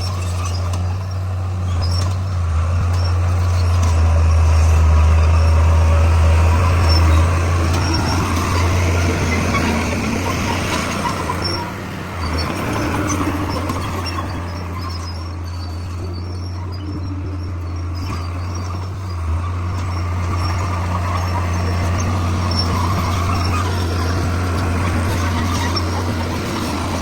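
Bulldozer's diesel engine running steadily with a deep, low hum, swelling louder for a few seconds near the start and easing off after.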